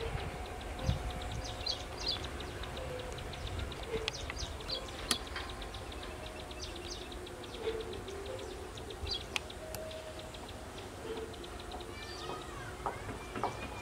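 Birds chirping and calling over the faint low rumble of a train moving away, the rumble strongest near the start.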